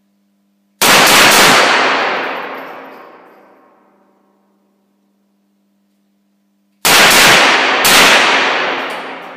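GSG 1911 .22 LR long-barrel semi-automatic pistol firing: gunfire about a second in, then two shots about a second apart near the end. Each report rings on for a couple of seconds in the echo of the indoor range.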